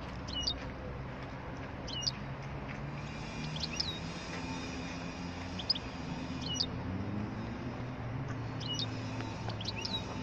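Caged songbirds giving short, high, whistled chirps every second or two, some sliding down in pitch, over a steady low rumble of city traffic.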